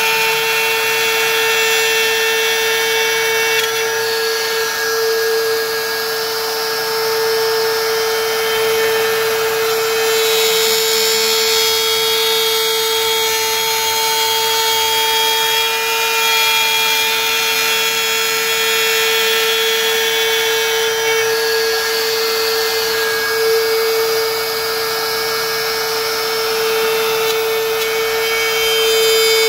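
DeWalt plunge router running with a steady high whine while its bit cuts parallel grooves into a hardwood board.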